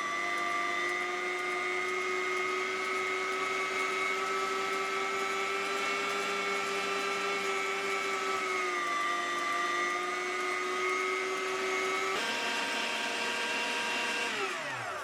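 Electric meat grinder's motor running steadily as it grinds bar soap, a whine with several steady tones. Its pitch dips a little about nine seconds in and steps up about twelve seconds in. Near the end the motor is switched off and winds down with a falling whine.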